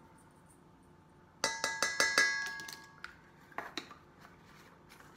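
A measuring spoon tapped rapidly against the rim of a stainless steel mixing bowl, about ten quick taps over a second and a half with the bowl ringing after each, knocking lemon pepper off the spoon. A couple of fainter clicks follow.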